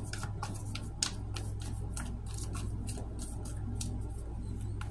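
Deck of tarot cards being shuffled by hand: a steady run of quick, irregular card snaps and flicks, over a steady low hum.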